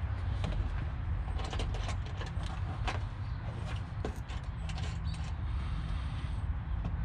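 Scattered light clicks and knocks from hands working on a car's front bumper cover and its quick-release latch mounts as it is fitted and adjusted, over a steady low rumble.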